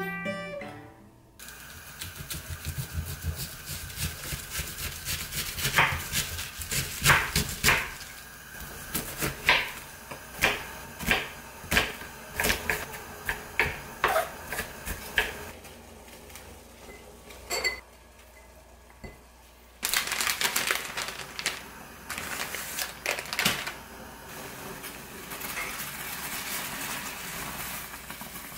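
Kitchen knife chopping onion on a wooden cutting board: a long run of irregular sharp taps. Near the end the taps give way to a steady hiss.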